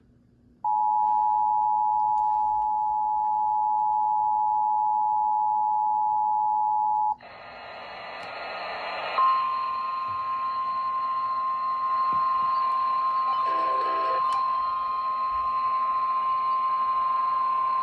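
Emergency Alert System two-tone attention signal, a steady pair of tones sounded together for about six seconds, that cuts off into radio static. The static grows louder, and a couple of seconds later a single steady 1050 Hz NOAA Weather Radio warning tone starts over it and sounds for about nine seconds, marking the start of the next alert.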